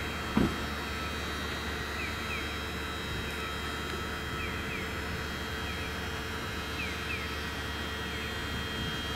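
Steady background hum with a low rumble and faint steady tones, with short falling chirps of a small bird, often in pairs, every second or two. A single low thump about half a second in.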